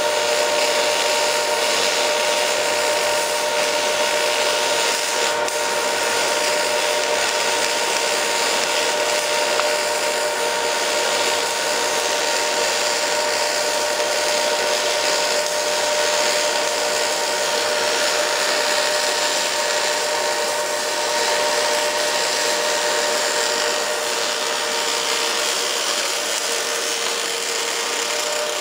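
Fronius TPSi MIG/MAG welding arc burning steadily, laying the root pass on a pipe joint: an even hiss with a steady hum that holds without a break.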